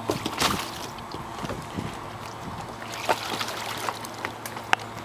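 Water splashing and sloshing around an RC catamaran's hull as it is set into the water, with a few scattered sharp clicks and ticks.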